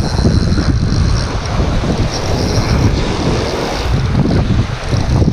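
Strong wind, about 15 knots, buffeting the action camera's microphone: a loud, unbroken rumbling rush.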